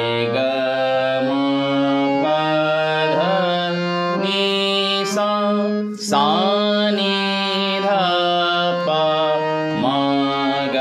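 Harmonium played slowly, stepping note by note through the sa re ga ma scale from G sharp. A voice sings along and slides into some of the notes.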